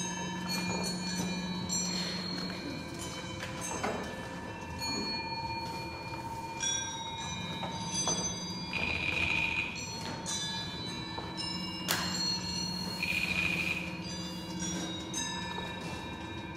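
Bell-like chimes struck one after another and left to ring, each at its own pitch, over a low steady hum. Twice a short hiss cuts in.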